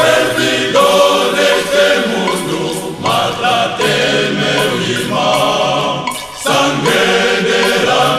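Male choir singing a gospel hymn in several voice parts, in long phrases with short breaks about three seconds in and again past six seconds.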